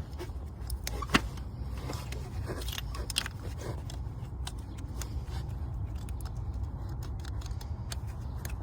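A few short clicks and light plastic handling, the sharpest about a second in, as electrical connectors are pushed onto the fuel injectors of a Toyota 4.0 V6, over a steady low hum.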